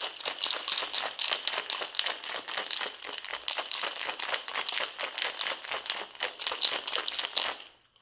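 Ice cubes rattling inside a cocktail shaker being shaken hard, a fast even clatter of many strikes a second. It stops suddenly shortly before the end.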